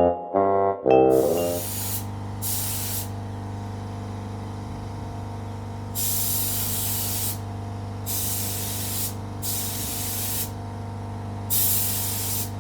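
Paint spraying in bursts of about a second each, six in all, over a steady machine hum; short piano music ends about a second in.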